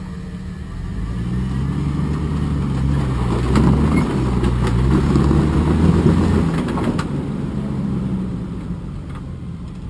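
Rock crawler's engine pulling under load as it works up a rock ledge: the throttle comes up about a second in, holds, and eases back off after about six and a half seconds.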